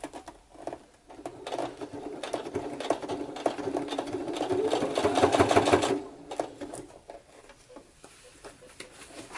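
Brother electric sewing machine stitching through leather: a fast run of needle strokes starting about a second in, growing louder, then stopping abruptly about six seconds in. A few faint handling clicks follow.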